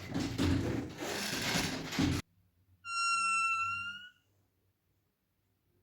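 Clattering, rustling handling noise that stops abruptly about two seconds in, then a single high, steady whistle-like squeak held for over a second.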